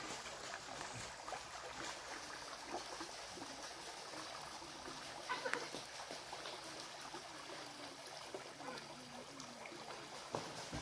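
Shallow rocky stream trickling over stones, a steady hiss of running water.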